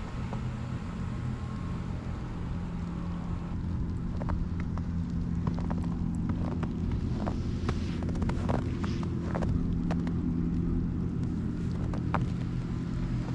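Steady low drone of an idling engine or machinery. From about four seconds in, scattered light crunches and clicks sound over it.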